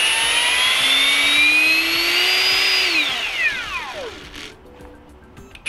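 Ryobi R18PDBL-0 18V brushless hammer drill spinning free with no load, its motor and gearbox whine rising slowly in pitch as the trigger is squeezed further. About three seconds in it winds down over a second or so to a stop. It starts again right at the end.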